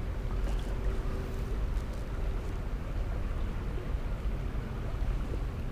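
Steady low outdoor rumble of wind on the microphone and flowing river water, with a faint steady hum underneath.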